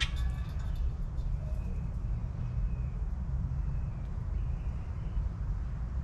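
Backyard ambience: a steady low rumble with faint bird calls now and then.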